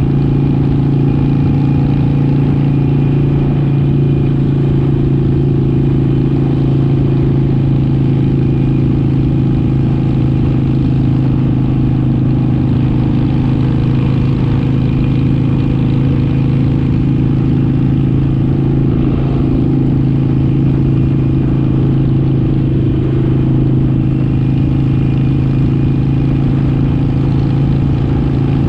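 Motorcycle engine running at a steady highway cruise, a constant droning hum that holds its pitch with no revving. Wind rushes over the handlebar-mounted microphone underneath.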